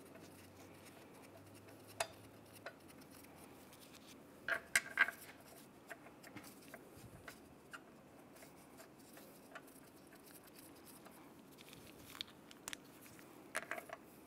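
Faint scattered metallic clicks and taps as steel lug bolts are handled and threaded by hand into an alloy wheel hub, with a small cluster of clicks about four to five seconds in and a few more near the end.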